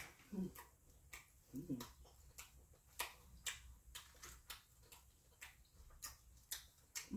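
Close-up mouth sounds of a person chewing a mouthful of boiled shrimp: wet smacks and clicks about twice a second, with two short hums in the first two seconds.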